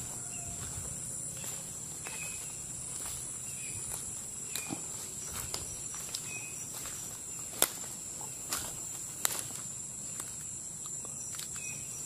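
Footsteps through undergrowth and fallen palm fronds, with a scatter of short sharp snaps of leaves and twigs, over a steady high-pitched insect drone.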